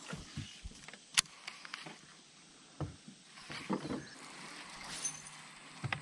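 Faint, scattered clicks and knocks of fishing tackle being handled on a bass boat's deck, with one sharp click about a second in.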